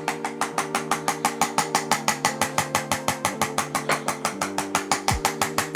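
ArthroStim handheld chiropractic adjusting instrument firing a rapid, even train of percussive taps, about eight a second, delivering thrusts to the spine. The taps stop just before the end.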